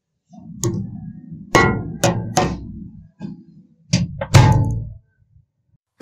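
A run of about seven hard knocks and thumps at an irregular pace, each with a low, boomy rumble under it. The loudest come about one and a half seconds in and near four and a half seconds, and they stop about a second before the end.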